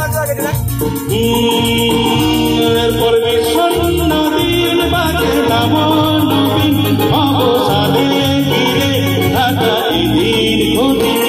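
Live band music through a PA system: a male singer singing over drums, bass guitar, electric guitar and keyboard, with a steady drum beat.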